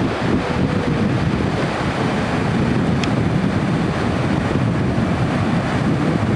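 Surf breaking and washing onto a sandy beach, a steady rush mixed with wind buffeting the microphone.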